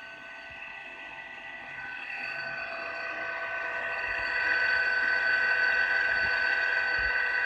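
Thermal imaging camera's sensor cooling pump running with a steady high-pitched whine made of several fixed tones, growing louder over the first few seconds and then holding steady. The pump runs, but the owner suspects it is not pumping the sensor down to temperature.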